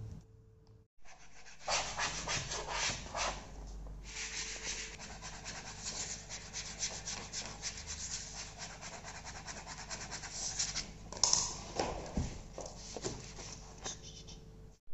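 Rapid back-and-forth rubbing and scratching strokes on a hard surface, starting a couple of seconds in with a brief pause partway and heavier strokes near the end.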